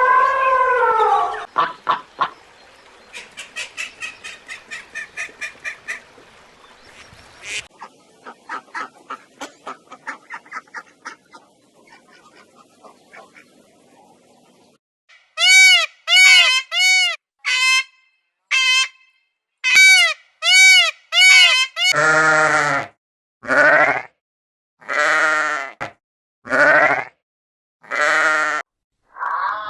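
Different animal calls one after another: rapid pulsed calls that fade, then a run of short arched cries, and near the end about five loud bleats of a ram.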